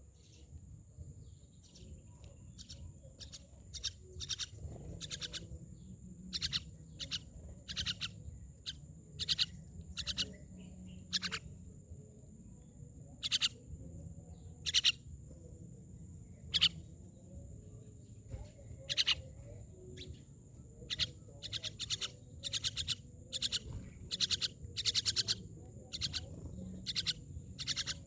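Myna birds calling: a steady stream of short, sharp chirps and squawks, some coming singly and some in quick clusters, over a steady low rumble.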